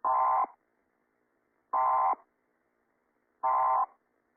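Three short bursts of electronic data tone, each about half a second long and spaced about a second and a half apart: the Emergency Alert System end-of-message signal that closes the alert.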